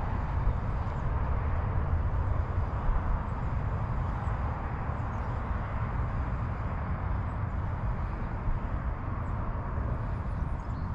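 Steady wind rumble on the microphone, with a Daiwa Caldia spinning reel being cranked to retrieve the lure.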